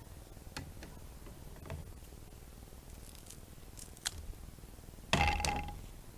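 Light clicks and rustles of leaves and paper being handled and laid out, then a louder, sharp clatter about five seconds in.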